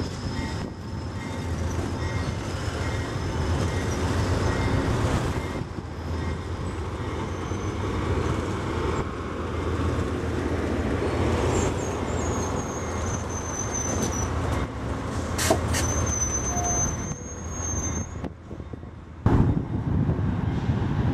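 Amtrak California bilevel passenger cars rolling past on the track, their wheels and trucks making a steady heavy rumble. A few thin, high squeals from the wheels come and go around the middle, and the rumble drops away briefly near the end before a louder one starts.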